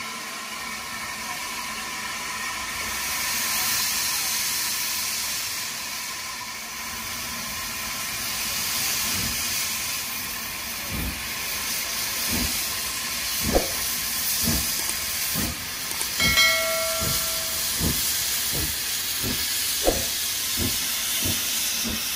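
Steam saddle-tank locomotive starting away with its train: steady hissing of steam, then from about ten seconds in its exhaust chuffs begin and quicken as it gathers speed, with the open cylinder drain cocks hissing. A short whistle blast sounds about sixteen seconds in.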